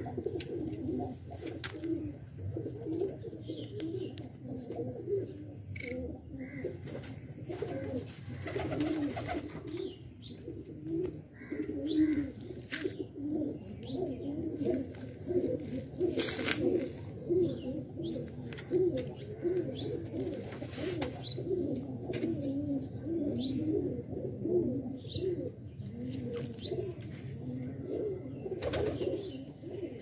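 A flock of domestic pigeons cooing, many low warbling calls overlapping without a break, with an occasional short sharp noise among them.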